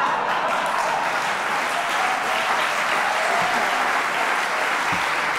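Large theatre audience applauding steadily after a punchline.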